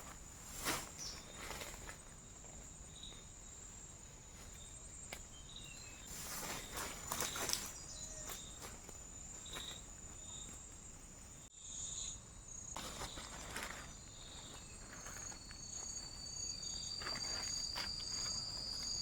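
Jungle insects, crickets, trilling in a steady high tone, with a few brief rustles of movement. About three-quarters of the way through, a second, slightly lower insect call starts up and keeps going, its pitch creeping up a little.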